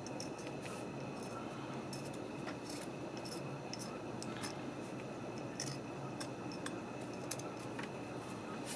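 A small tool scraping and clicking on the plastic parts of a truck dimmer switch, lifting off clumps of old electrical grease: short, irregular scrapes and ticks over a steady low hum.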